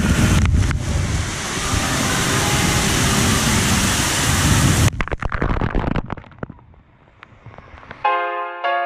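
Loud, close rushing and splashing water that cuts off suddenly about five seconds in, followed by a few soft knocks. Gentle piano music begins near the end.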